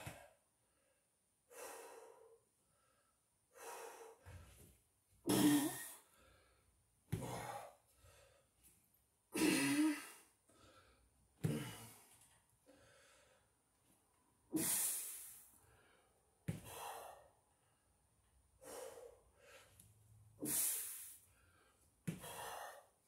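A man breathing hard through a set of false-grip ring pulls, with a sharp, noisy breath every second or two as he strains through each rep.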